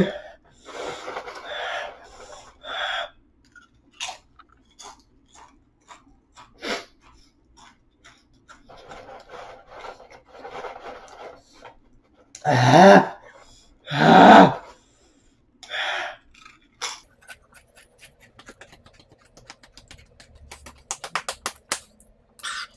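A man breathing hard in pain from the burn of ghost pepper chips: hissing breaths in and out through the mouth, with two loud groaning cries falling in pitch about halfway through. Near the end comes a quick run of small crunching clicks.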